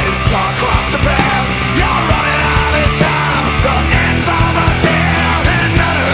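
Loud rock music with drums and guitars, a soundtrack laid over the footage.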